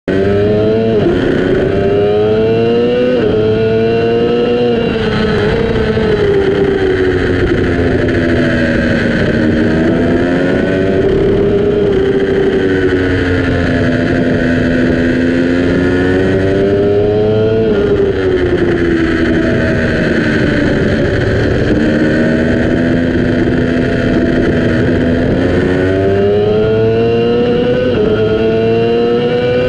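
Yamaha R6 sport bike's 600 cc inline-four engine running at high revs through a fast track lap: the pitch climbs under acceleration, drops sharply at each upshift, and falls away under braking for corners before climbing again. Wind rush is heard over the engine throughout.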